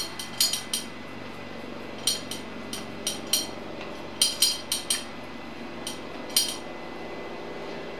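Light, sharp clicks and taps, about a dozen in irregular clusters, as a small hand tool knocks against the metal transmission housing while grease is worked onto the gearbox shaft. A steady low hum runs underneath.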